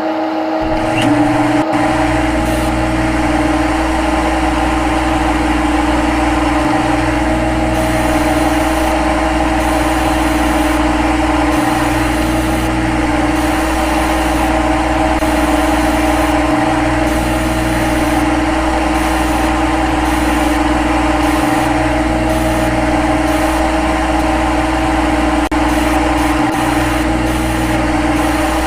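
CNC lathe running with a loud, steady hum and whine. The low rumble dips briefly about every five seconds.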